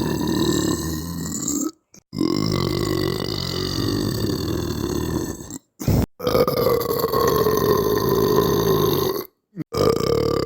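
A person's long, drawn-out belches, one after another, each held at a fairly steady pitch for about three seconds. They are broken by brief, abrupt silences.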